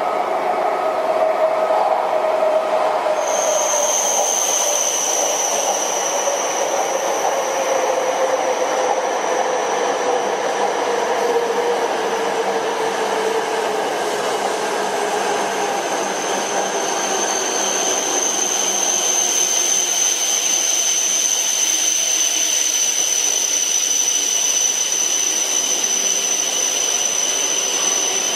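E5 series Shinkansen passing at high speed: a steady loud rush of rail and air noise, with a tone that slowly falls in pitch over the first dozen seconds. A high thin steady whine joins about three seconds in and carries on to the end.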